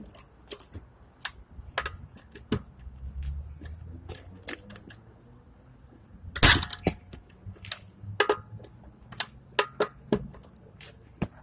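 Scattered metal clicks and clanks of a lug wrench being fitted to and worked against a car's lug nuts, with one louder clank about six and a half seconds in.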